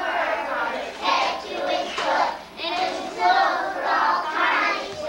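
A group of young schoolchildren singing together in unison, in short phrases of about a second each with brief breaks between them.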